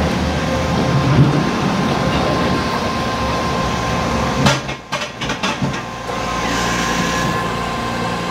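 Pallet jack rolling into a truck trailer: a steady mechanical rumble and hum, with a few sharp knocks and a brief dip in level about halfway through.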